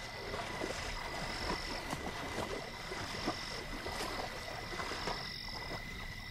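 Night-time swamp chorus of frogs croaking, many short calls overlapping, over a steady high-pitched tone and a higher trill that comes and goes.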